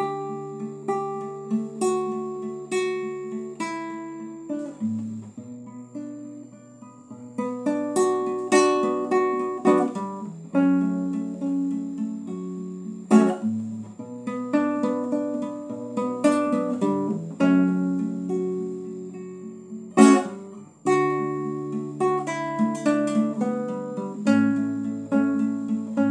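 Acoustic guitar played solo: a flowing instrumental passage of picked notes and arpeggiated chords, with a couple of sharply struck chords standing out.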